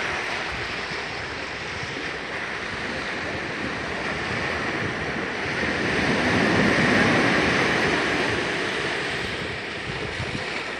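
Sea surf breaking and washing up the sand, a steady rush that swells louder about two-thirds of the way through and then eases back.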